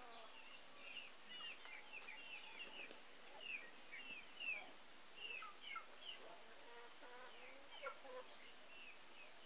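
Birds chirping faintly and continuously: short falling chirps several times a second, with a few lower calls in the middle.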